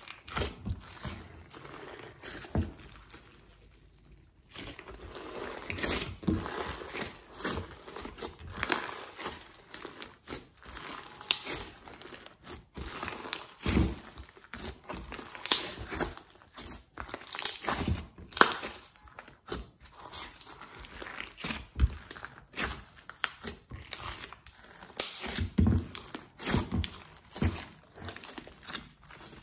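Glossy slime with clay and glitter mixed in, squished, folded and stretched by hand, giving irregular sticky squelches and crackles. There is a brief quiet spell about three seconds in, before the kneading picks up again.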